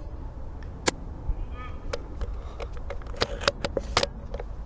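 Scattered sharp clicks and rattles of a Novritsch SSG24 airsoft sniper rifle being handled, thickest near the end, over a low steady rumble.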